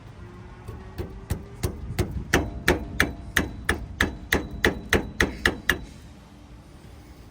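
About fifteen sharp, ringing metal taps at roughly three a second, starting about a second in and stopping about a second before the end. This is a hammer tapping at the rear brake caliper or its bolt to seat it.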